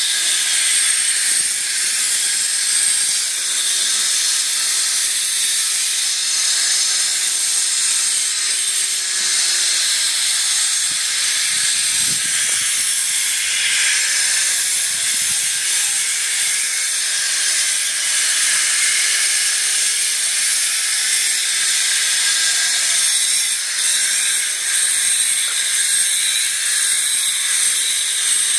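Handheld electric stone cutter running continuously on granite, a steady high-pitched hiss and whine.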